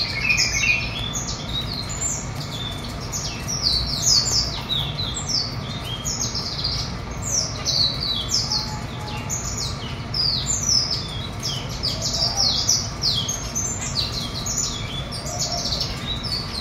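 Many small cage birds chirping together in an aviary: a constant overlapping stream of short, high, downward-sweeping chirps, over a low steady hum.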